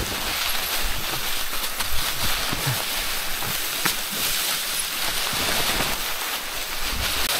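Mountain bike rolling down a rocky trail covered in leaves: a steady rushing noise from the tyres on loose stones and leaves, with scattered knocks and rattles as the bike goes over the rocks.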